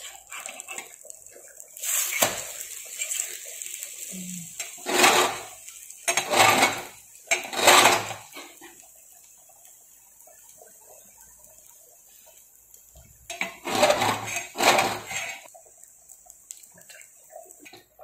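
Metal spatula scraping and knocking against a flat tawa pan as it works under an omelette, in several short bouts: loudest about five to eight seconds in and again around fourteen seconds, with a quieter stretch between, over a faint steady hiss.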